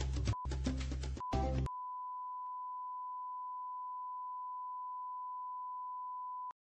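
Music breaks off about a second and a half in, cut twice by short beeps, then a steady high-pitched sine test tone of the kind that goes with colour bars holds for about five seconds and cuts off suddenly near the end.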